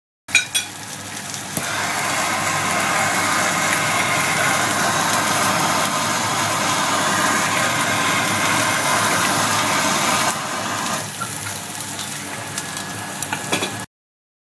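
Handheld gas blowtorch flame hissing steadily as it sears a thick beef rib steak in a wok, with the fat sizzling. It grows louder about a second and a half in and eases off about ten seconds in, with a few clicks at the start and near the end.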